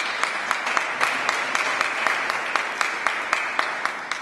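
A congregation applauding, with one person clapping close by at about four claps a second over the general clapping.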